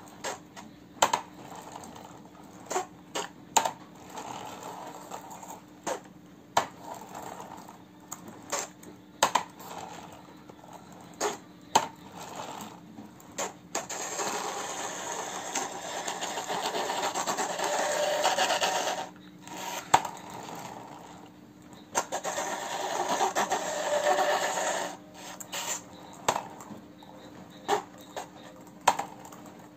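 Plastic toy dump truck being handled: scattered sharp plastic clicks and knocks, and twice a steady rubbing noise as it is pushed across the floor, the first lasting about five seconds.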